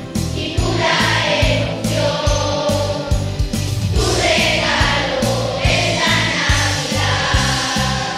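Children's choir singing a Christmas song in unison over accompaniment with a steady beat and bass line.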